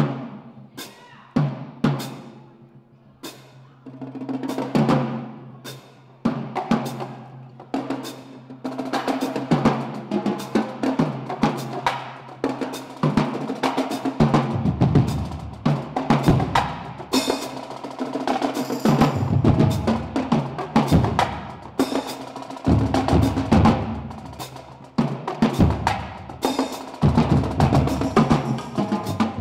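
Marching drumline playing: snare drums, tenor drums, bass drums and cymbals. It opens with sparse single hits that ring out, then about four seconds in moves into dense, rapid rhythmic playing, with the low bass drums coming in strongly about halfway through.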